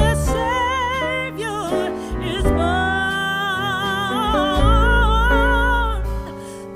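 Background music: a slow melody with vibrato over a deep bass line.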